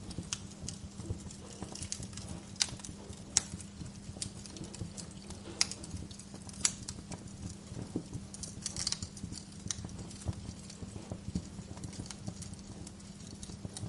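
Wood fire in a fireplace crackling: irregular sharp snaps and pops, a few of them louder, over a steady low rumble.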